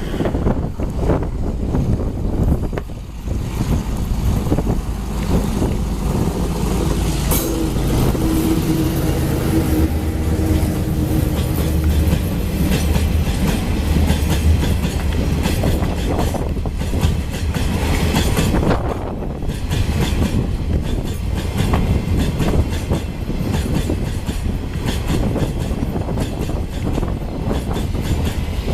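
Coal freight train passing close by: the R20 diesel-electric locomotive's engine running with a steady low hum through the middle, over the continuous rumble and clickety-clack of the wagons rolling along the track.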